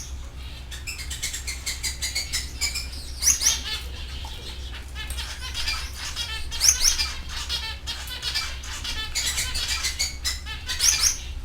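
Canaries singing in rapid trills and chirps, with a few loud rising whistled sweeps, over a steady low hum.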